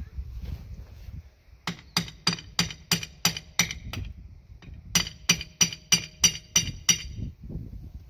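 Hammer blows ringing on a steel chisel driven into the seam of a tractor's cast axle hub housing to split its two halves apart. Two runs of sharp metallic strikes, about three a second: some eight, a short pause, then seven more.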